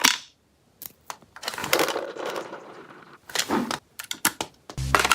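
Gel blaster clicking and rattling, with a short stretch of whirring about a second and a half in and a quick run of clicks toward the end. Music comes in near the end.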